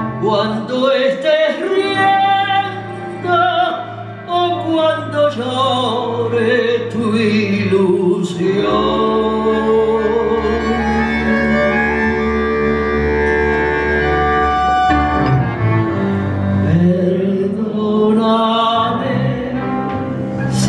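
A woman singing a tango in Spanish with a small orchestra accompanying her, which holds long, steady notes through the middle.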